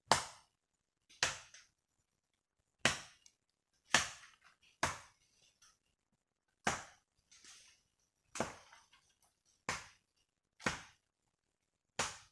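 A machete (parang) chopping into hard wood: about ten sharp, separate strikes at an uneven pace, one every second or so, some followed by a lighter knock.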